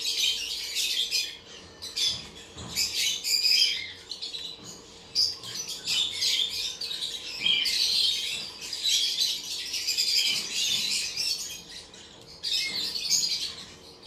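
Caged lovebirds chattering: many rapid, high-pitched chirps and squawks in overlapping bursts, with a few short lulls.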